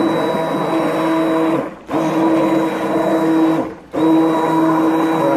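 Stick blender running in a pot of raw soap batter, a steady motor whine that cuts out briefly twice, about two seconds apart, as it is pulsed. The batter is being blended toward trace.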